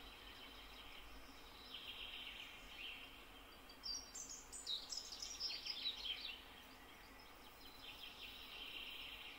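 Faint songbird song: several short chirping and trilling phrases, the loudest and busiest from about four to six seconds in, over a steady background hiss.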